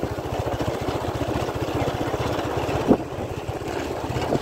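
Motorcycle engine running steadily on the move, with a fast, even engine beat and a brief knock about three seconds in.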